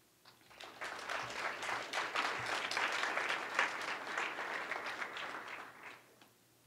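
Audience applauding, many hands clapping at once: it builds quickly in the first second and fades out about six seconds in.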